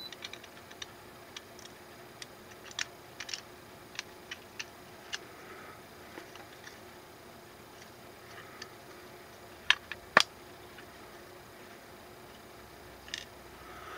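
Scattered small clicks and taps of metal parts being handled as rail adapter keepers and screws are fitted into an AR-15 handguard, with two louder clicks about ten seconds in. A faint steady hum runs underneath.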